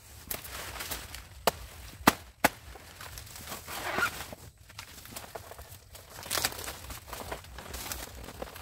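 Dry banana leaves and stalks crackling and tearing as they are pulled by hand, with three sharp snaps about one and a half to two and a half seconds in.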